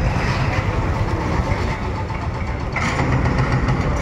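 Hydraulic excavator's diesel engine running steadily while it demolishes a building, with a brief louder rush of noise about three seconds in.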